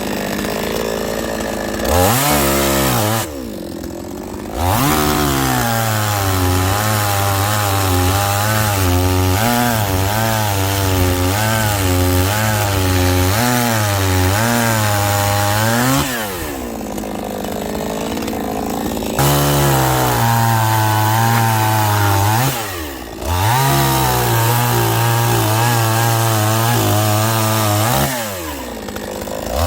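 Chainsaw cutting firewood. It is revved to full throttle for long cuts, its pitch wavering under load, and it drops back to idle between cuts several times.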